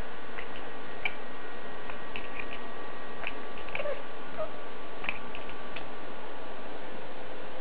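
Domestic cat chattering: scattered soft clicks, irregularly spaced, with a couple of brief faint chirps near the middle, over a steady hiss.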